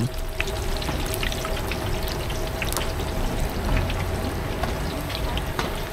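Dough deep-frying in a large wok of hot oil: a steady sizzle with many small scattered crackles and pops.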